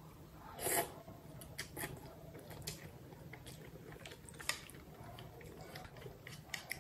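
Someone eating noodle soup with chopsticks: one loud, short slurp of noodles just under a second in, followed by soft chewing with scattered small clicks and mouth smacks.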